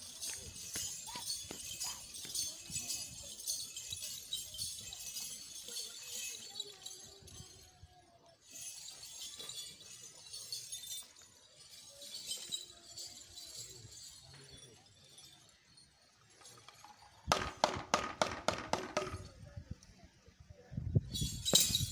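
Light metallic jingling and rattling from the Bwola dancers' costumes as they move. Three-quarters of the way through comes a quick run of sharp, evenly spaced strokes, and near the end the bwola drums start up loudly with the jingling over them.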